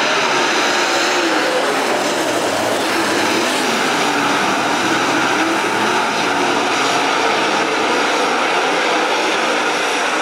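A field of dirt-track race cars racing past, their engines loud and continuous, the pitch rising and falling as they run through the turns.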